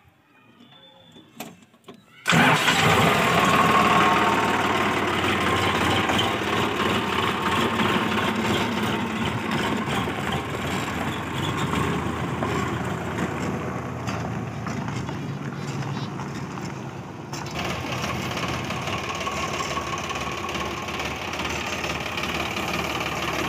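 A Sonalika tractor's diesel engine is key-started about two seconds in, catching at once and then running steadily. About three-quarters of the way through, the sound changes abruptly and gets brighter.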